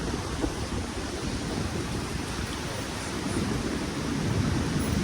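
Steady outdoor rushing noise, heaviest and rumbling in the low end, of the kind made by strong wind on the microphone or surf.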